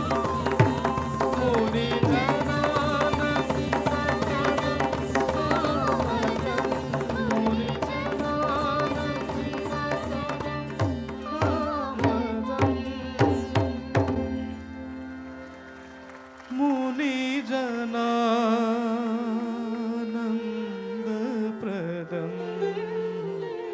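Odissi dance accompaniment music: a full ensemble with drum strokes, building to a run of loud, sharp drum beats about halfway through. The music then drops away briefly, and a slow melodic line with wavering pitch carries on.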